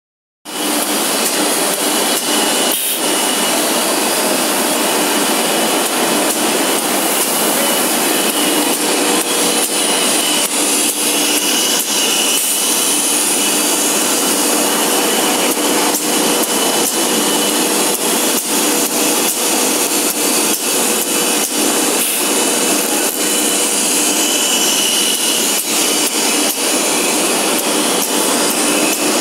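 Woodworking machinery running, including a CNC side-hole drilling machine: a steady mechanical din with a faint high whine that comes and goes, and scattered clicks and knocks.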